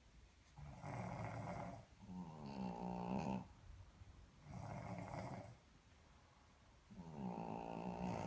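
Snoring from a sleeping Boston terrier and a man. Two kinds of snore alternate: a rasping snore about a second in and again near five seconds, and a deeper, droning snore with a wavering pitch about two seconds in and again near seven seconds.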